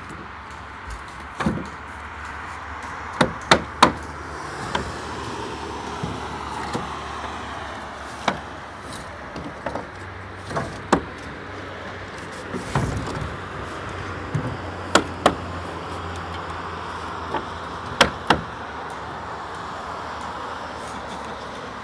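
Scattered sharp knocks of wooden planks being set down and struck with a hammer on a timber frame, some coming in quick pairs. Steady road traffic runs underneath.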